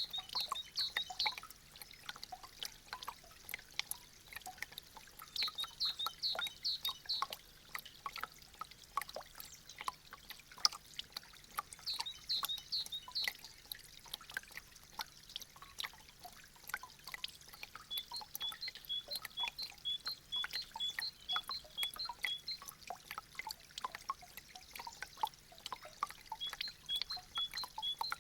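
Meltwater from thawing icicles dripping and trickling, a dense irregular patter of drops. High chirps come in short bursts, and from about two-thirds of the way through a high two-note chirp repeats about twice a second.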